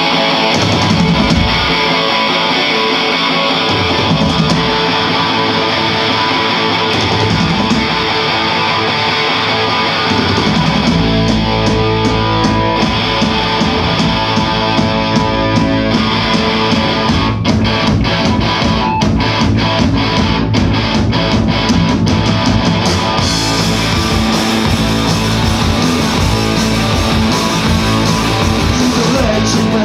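Live rock band playing loud distorted electric guitars through amplifiers, with no singing yet. The guitar plays with little low end for about the first ten seconds, then a heavy low end fills in and the full band plays.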